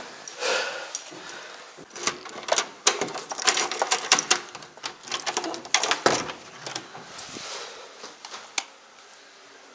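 A run of clicks, knocks and rustling from things being handled, busiest between about two and six seconds in, then dying down.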